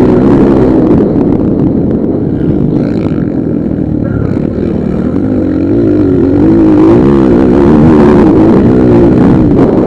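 Motocross dirt bike engines racing, loud and close, their pitch rising and falling as the riders rev through the throttle.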